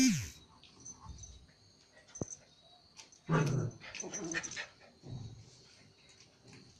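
Pomeranian and Japanese Spitz play-fighting: a rough burst of dog growling a little over three seconds in, with a shorter, softer growl about a second later and a few light knocks of paws on the carpet before.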